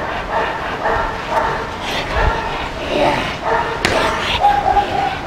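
Dobermann barking repeatedly, a dog worked up for protection bite work.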